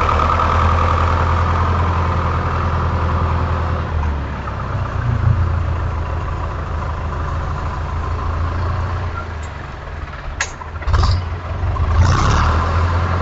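An engine running steadily with a low hum, with a couple of sharp knocks about ten to eleven seconds in and a louder surge about twelve seconds in.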